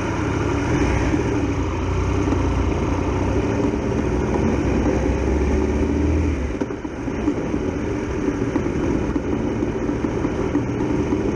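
Triumph Tiger Explorer XRx motorcycle's three-cylinder engine running as the bike pulls away and rides on. The engine sound dips briefly about two-thirds of the way through, then picks up again.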